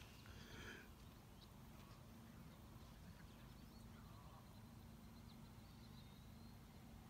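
Near silence: faint open-air ambience with a few faint, short bird chirps.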